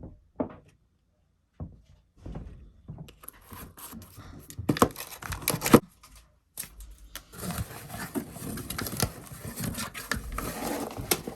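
Packaging being handled and opened: a few light knocks, then steady crinkling and rustling with sharp crackles.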